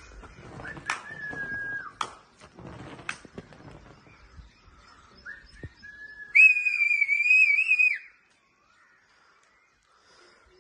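A person whistling at pigeons circling overhead: a couple of short, level whistles, then one loud, wavering whistle lasting about a second and a half that stops abruptly. Clicks and handling noise come before it.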